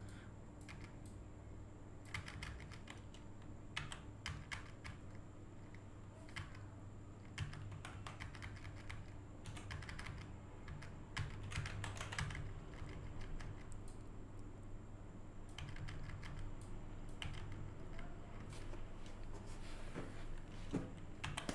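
Computer keyboard keys pressed at an irregular pace, single clicks and short clusters, over a faint steady electrical hum.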